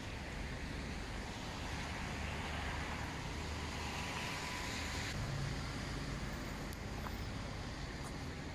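Steady outdoor background of distant traffic hum and hiss, with some wind, swelling a little in the middle.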